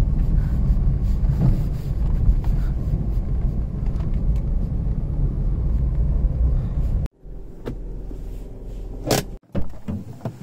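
Car engine and tyre rumble heard inside the cabin as the car climbs a steep brick-paved lane. It cuts off abruptly about seven seconds in, leaving a quieter interior, and a sharp click from the inside door handle comes near the end.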